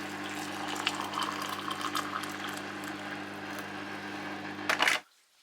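Water bubbling and hissing over a steady hum, with a louder hiss just before it cuts off abruptly about five seconds in.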